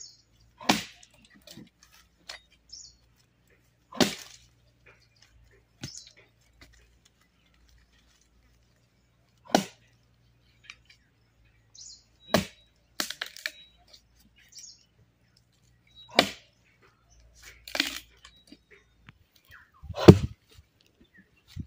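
Axe blows chopping into a felled tree log: about seven single sharp strikes, a few seconds apart, the loudest near the end.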